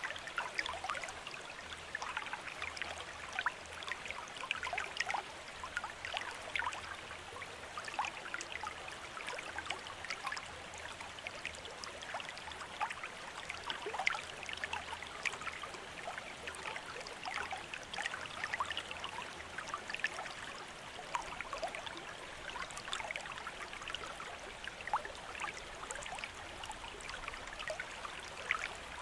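Bamboo water fountain, water trickling and splashing steadily, with many small drips and splashes.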